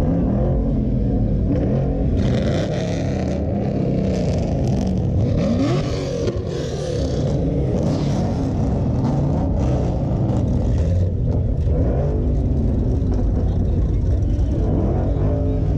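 Several car engines idling and revving at low speed, with a brief rising rev about five to six seconds in.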